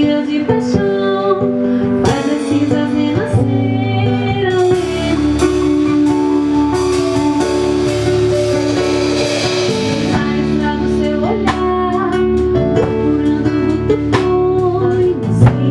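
A band rehearsing a song: guitar and bass with a drum kit, cymbals washing in the highs for several seconds mid-passage.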